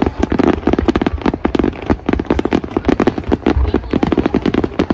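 Aerial fireworks going off in a rapid barrage: a dense, continuous run of sharp cracks and pops, many a second, over deep booms.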